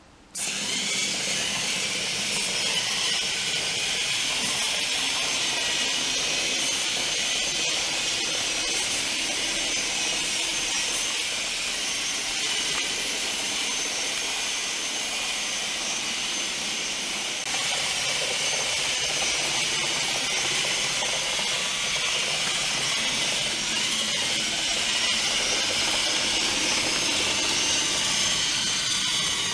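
Small tracked robot's two DC gear motors driving its tracks across a hardwood floor: a steady, hissy whirr that starts abruptly and gets slightly louder past halfway.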